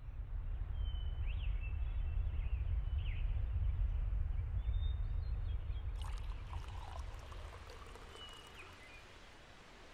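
Outdoor ambience: a steady low rumble with a few short high chirps, growing quieter after about six seconds.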